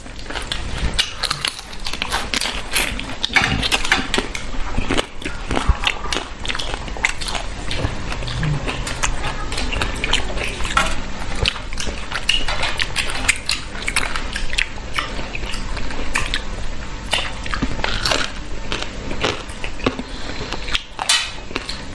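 Close-up eating sounds: biting, chewing and sucking at giant freshwater prawn in curry, with many short wet clicks and smacks throughout.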